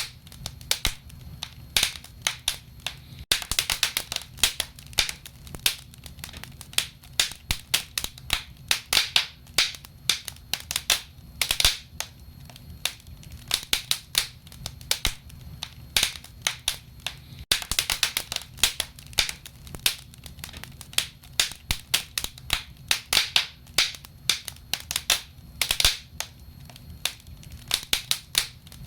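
Fire burning in a fireplace, crackling and popping. Irregular sharp snaps come in clusters of several a second over a steady low rumble.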